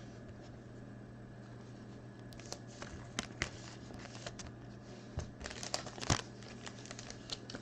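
Crinkling of a trading-card pack wrapper and cards being handled: scattered rustles and sharp clicks that begin about two seconds in and grow busier near the end, over a faint steady hum.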